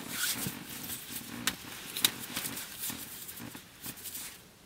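Hands slapping, clasping and rubbing together in an elaborate handshake: a handful of light, sharp skin slaps and rustles at irregular intervals, growing quieter toward the end.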